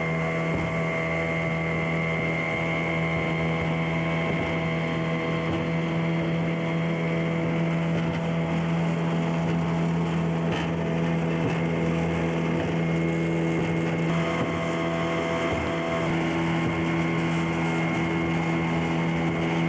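Motorboat engine running steadily as the boat travels along, its hum holding an even pitch with a slight shift about fourteen seconds in.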